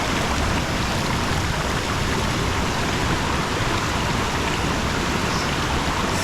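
Waterfall in heavy flow: a steady, loud rush of falling water.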